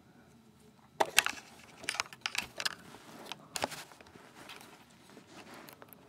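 Handling noise of hands working a wire at a fire alarm's screw terminal block: a string of light clicks and knocks with rustling, starting about a second in and thinning out toward the end.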